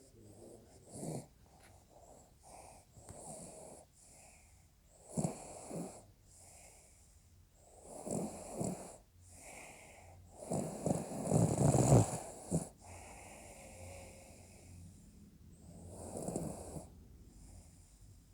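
Snoring: a run of irregular snores of varying length, the loudest and longest about two thirds of the way through.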